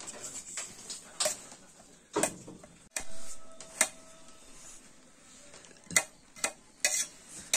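A hand working flour in a steel bowl, with about eight sharp, irregular clicks and knocks against the metal.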